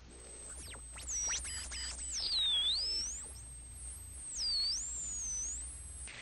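Experimental noise music: a thin, high electronic tone that holds steady, then swoops down in pitch and back up several times, over a faint low hum.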